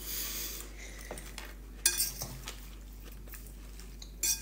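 Metal fork clinking against a salad bowl twice, once about two seconds in and again near the end, each with a short ring, after a brief rustle of the fork among the salad leaves at the start.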